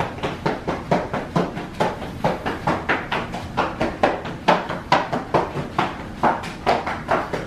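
Quick, hard footsteps, about two to three a second.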